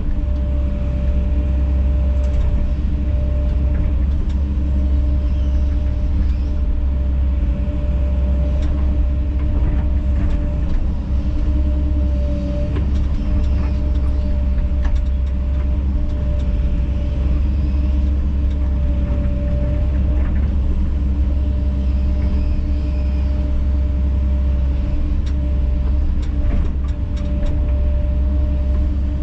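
Kobelco SK210 excavator's diesel engine running steadily under load, with a steady hydraulic whine over the low rumble and a few short knocks scattered through.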